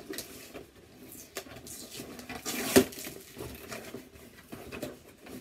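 Cardboard shipping box being handled and opened: scattered scraping, rustling and light taps, with one sharp click near the middle.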